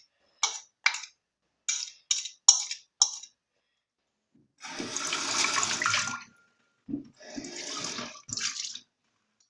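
Kitchen tap running in short spells, about a second and a half, then twice more briefly, after a series of about six short clicks.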